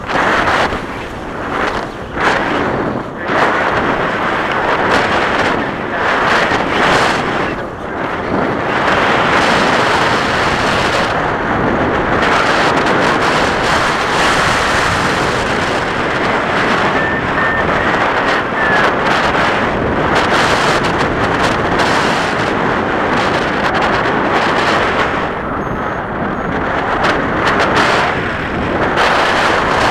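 Wind buffeting the camera microphone during tandem paraglider flight: a loud, steady rush of airflow with a few dips in the first few seconds.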